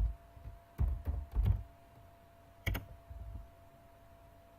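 Computer keyboard typing: a few irregular keystrokes in the first second and a half and one more near the three-second mark, then a pause, over a faint steady hum.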